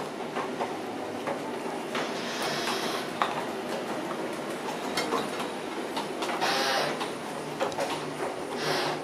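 Subway station elevator's doors sliding open and closed, with clicks and rattles over a steady low hum. Several short hissing bursts come through, about two seconds in, again near the seven-second mark, and just before the end.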